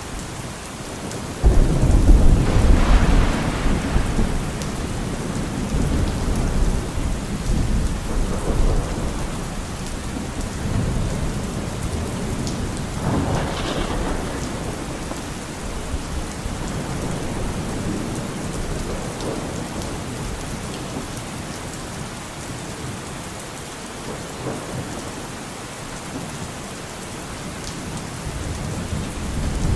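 Steady rain falling, with thunder rolling through it: a sudden low rumble about a second and a half in that rolls on for several seconds, a sharper clap around the middle, and rumbling building again near the end.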